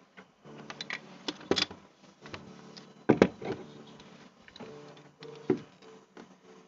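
Irregular sharp clicks and knocks, as of something being handled, over a steady low hum; the loudest knock comes about three seconds in.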